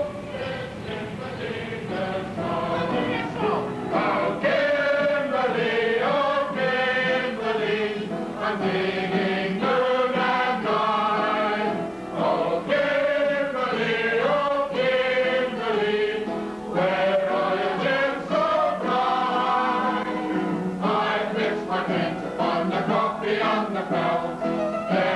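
Background music: a choir singing a slow melody with long held notes.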